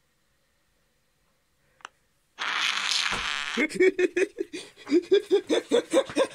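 A single click, then about a second of loud rustling as cloth in a laundry basket is rummaged, followed by a fast run of short pitched vocal sounds, about six a second.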